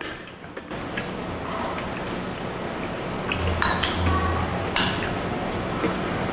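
Metal spoon and fork clinking and scraping against a glass baking dish while thick lomi noodles in sauce are stirred and lifted, with wet squishing of the noodles. There are a few sharp clinks, the loudest near the middle of the stretch, over a steady low hum.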